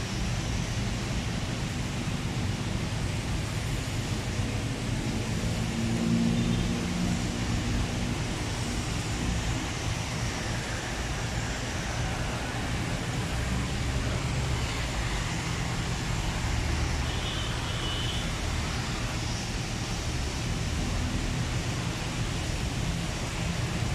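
Steady rain falling on wet pavement, a constant hiss with a low rumble underneath.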